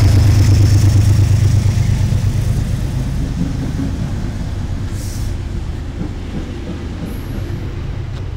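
Metro-North P32AC-DM diesel locomotive's engine hum and whine fading over the first few seconds as it moves off, followed by a steady rumble of passenger coaches rolling past. There is a brief hiss about five seconds in.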